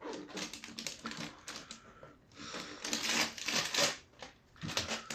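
A doll's packaging being handled and opened: a run of quick clicks, crackles and rustles, louder for a second or so around the middle.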